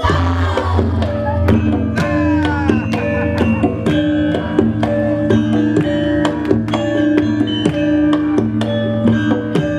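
Javanese gamelan ensemble playing: a loud stroke at the very start with a deep tone that hangs on for about a second, then layered ringing metallophone and gong-chime notes struck in a steady pulse, with drum strokes.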